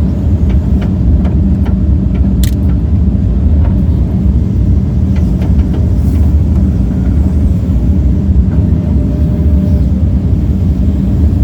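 John Deere 135G excavator's diesel engine running steadily with a loud low rumble, heard from the cab, with a few light clicks and knocks, the sharpest about two and a half seconds in.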